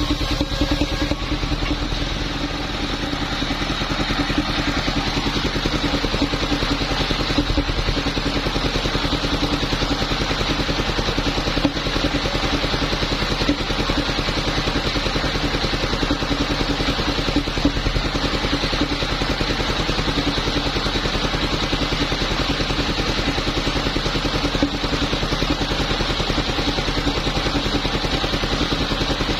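Engine of a powered wood saw running steadily at a constant speed.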